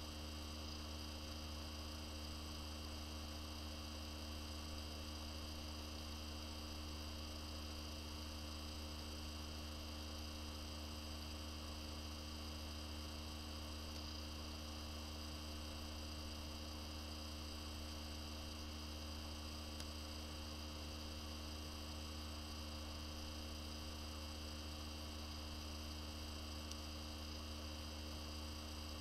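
A steady low electrical hum with a faint hiss behind it.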